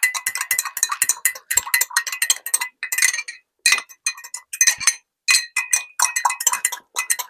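A spoon clinking rapidly against the side of a ringing container while stirring a mixture of lime juice, lemon juice and olive oil, with two short pauses.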